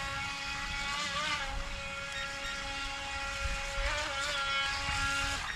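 Electric motor of a DEERC H120 RC racing boat whining as it runs on the water, its high pitch wavering slightly with throttle and steering, then cutting off suddenly at the end.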